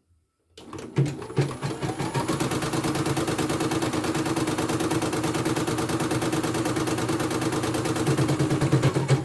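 CNY E900 portable embroidery machine stitching at speed: a fast, steady needle rhythm that starts about half a second in, after a short silent dropout. It is running fast and smoothly, without any fault.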